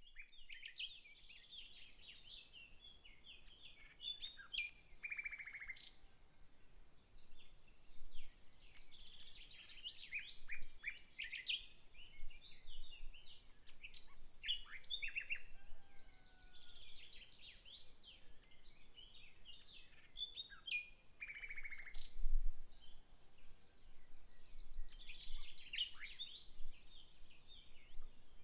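Songbirds singing, with bursts of rapid chirping phrases every few seconds, some ending in a quick trill.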